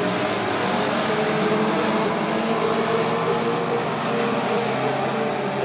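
Several mini stock race cars' four-cylinder engines running steadily together as the cars circle a dirt oval, with no clear revving up or down.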